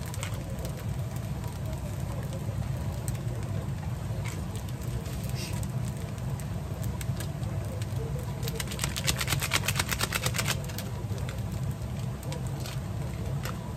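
Rice and ham frying in a frying pan on a gas stove over a steady low hum. About two-thirds of the way through comes a quick run of clicking, about ten a second for two seconds.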